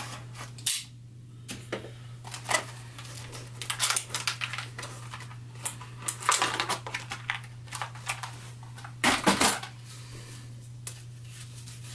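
Stiff plastic clamshell packaging being pried and pulled apart by hand: irregular crackling, clicking and rustling, loudest about six and nine seconds in.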